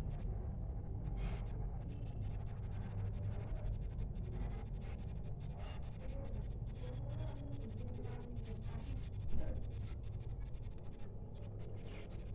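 Fingers handling a roll of washi tape, picking at its end and peeling it off the roll: many small clicks, crackles and rustles, with one louder knock about nine seconds in, over a steady low background hum.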